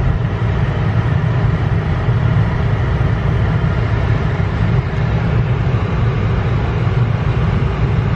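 Steady, loud rumbling noise inside a car cabin, even throughout with no distinct events.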